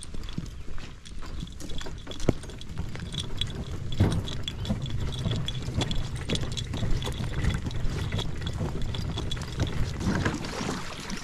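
Water sloshing and splashing around a kayak, with scattered knocks and a low rumble.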